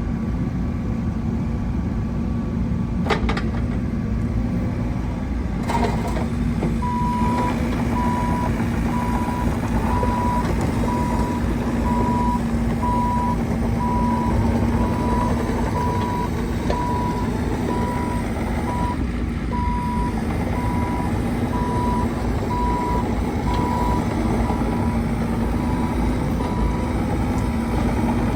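Bobcat E50 mini excavator's diesel engine running steadily, with two sharp knocks in the first six seconds. From about six seconds in, a motion alarm beeps in an even, repeating rhythm, the warning that the machine is travelling.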